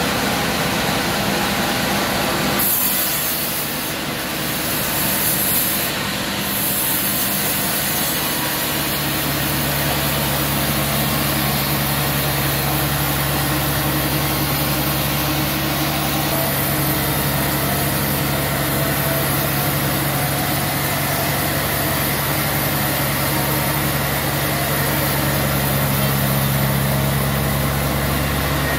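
Homemade band sawmill running steadily while its blade cuts a large slab of suar wood, a continuous motor drone under the rasp of the saw. A deeper, stronger hum comes in about nine seconds in.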